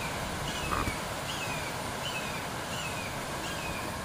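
A bird repeating a short slurred call about once every three-quarters of a second, over a steady outdoor background hiss.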